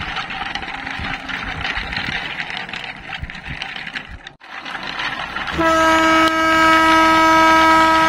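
Rattling clatter of a wooden toy train rolling over a dirt track, broken off by a short gap about four seconds in; then a train horn sounds one long steady blast, the loudest thing here.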